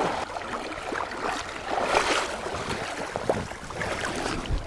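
Shallow creek water splashing and sloshing close by, in small irregular splashes, as a wading angler reaches down to handle a hooked pike.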